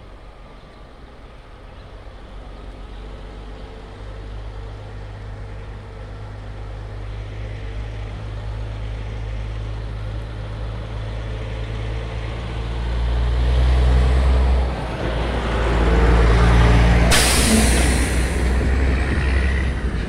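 A large motor vehicle comes along the road, its engine rumble growing louder and loudest in the last third. A sudden sharp hiss near the end fades over about a second.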